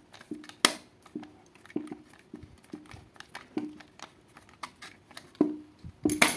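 Screwdriver tightening the earth terminal screw of a wall socket: a series of small metallic clicks, each with a brief ring, about one every half second, with a louder clatter near the end.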